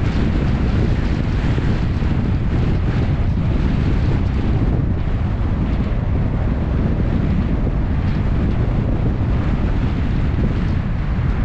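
Steady wind buffeting a GoPro's microphone on a moving vehicle, over a constant low rumble of road noise.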